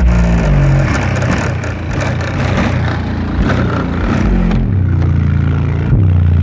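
Bass-heavy music played loud through a car audio system with a PowerBass subwoofer, its deep bass notes holding and stepping in pitch.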